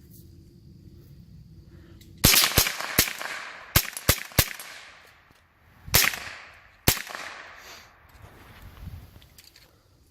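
Eight gunshots fired at an uneven pace, each with a short echoing tail: three in quick succession about two seconds in, three more right after, then two single shots about a second apart.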